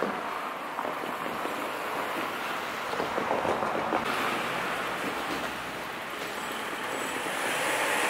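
Wind buffeting the microphone: a steady rushing noise that grows louder near the end.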